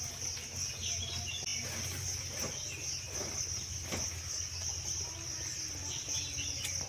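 A steady, high-pitched chorus of insects trilling, with a few short bird chirps and several faint thumps as a cloth sack is shaken out.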